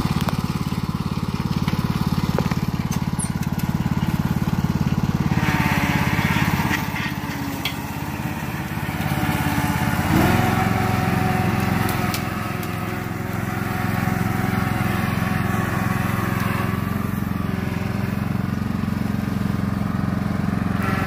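Toro riding lawn tractor engine running steadily while towing a logging arch with a log dragging behind. Its note shifts and dips briefly in the middle, then settles back to a steady run.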